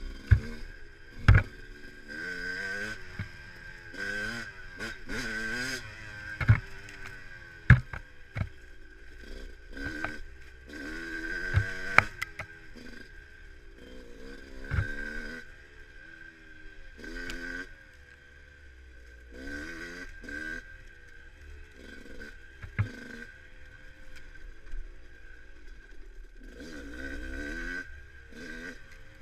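Dirt bike engine revving up and down as the throttle is worked on and off, with sharp knocks and clatters from the bike hitting bumps.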